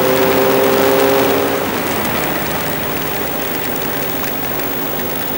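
Motorcycle engine running under way, heard from on the bike with a heavy rush of wind and road noise on the microphone. The engine note holds, then fades about a second and a half in, leaving mostly the wind rush.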